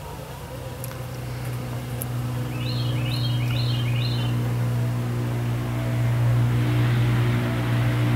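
Honeybee swarm buzzing: a steady low hum that grows louder toward the end.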